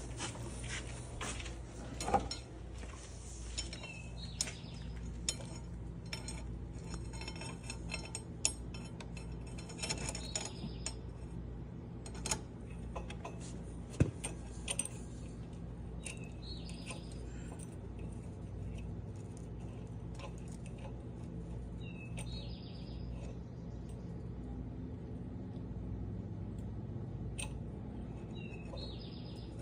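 Metal go-kart roller chain clinking and rattling as it is handled and test-fitted for length, with scattered sharp clicks, most in the first half. A bird chirps briefly every few seconds.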